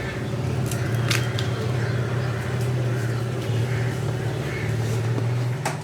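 A steady low mechanical hum, such as a motor, with two light clicks, about a second in and near the end.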